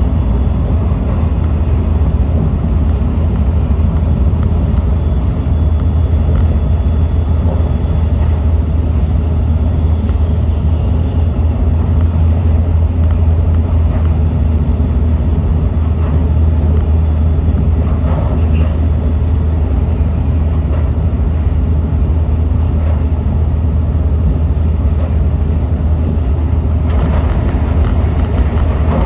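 Shinkansen high-speed train running at speed, heard inside the passenger cabin: a steady, low rumble and rush of running noise. Near the end a brighter, hissing rush joins in as a train passes close alongside.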